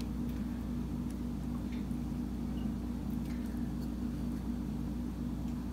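Steady low hum with a couple of faint soft ticks; no other distinct sound.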